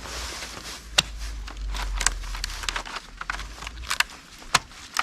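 Dry split bamboo strips clacking and knocking against each other as they are handled, in a string of irregular sharp clicks.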